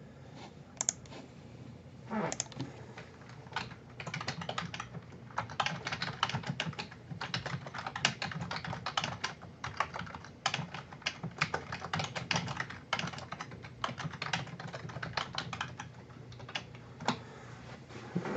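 Typing on a computer keyboard: quick runs of key clicks broken by short pauses, starting about two seconds in.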